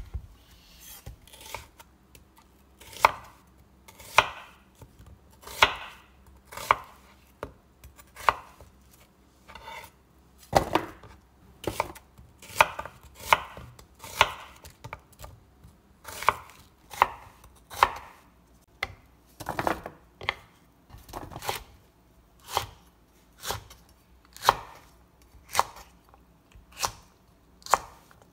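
Chef's knife cutting through onions and then green chili peppers on a wooden cutting board, each cut ending in a sharp knock of the blade on the board, about one cut a second and a little faster later on.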